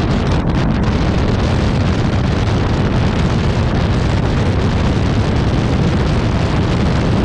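Steady, loud wind rush buffeting the camera microphone on a Yamaha motorcycle cruising at about 90 km/h, heaviest in the low range, with the ride's road and vehicle noise mixed in.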